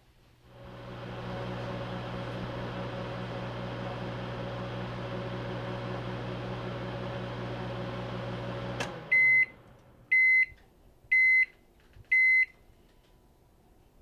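Microwave oven running with a steady hum for about eight seconds, then stopping with a click and giving four short high beeps about a second apart, its end-of-cycle signal.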